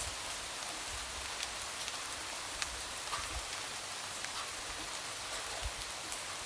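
Light rain tapping against a window: a steady soft hiss with scattered sharp drop ticks and a few dull low taps.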